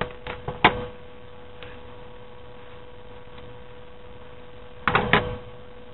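A few short snips of scissors cutting through folded paper in the first second, over a steady electrical hum. Near the end, a quick cluster of three or four clicks.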